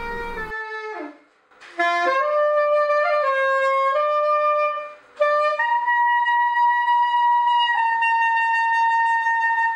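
Soprano saxophone playing a slow solo melody in short phrases, with two brief pauses, ending on a long held note of about four seconds.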